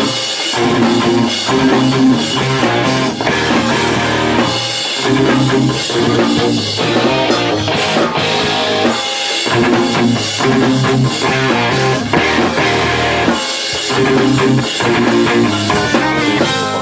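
Rock music with a drum kit and guitar, playing steadily in repeating sections.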